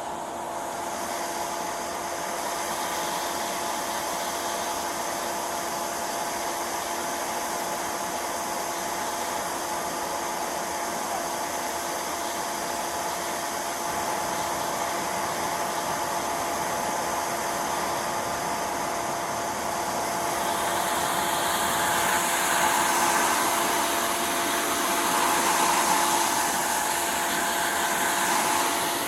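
A fan running with a steady whir and a few faint steady hums, getting louder and more uneven over the last several seconds.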